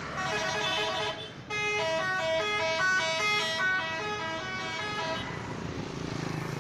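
Multi-tone "telolet" bus horn of an Indonesian coach: a short held chord, then, after a brief break, a tune of changing notes for about three and a half seconds. After that only a low engine rumble is left.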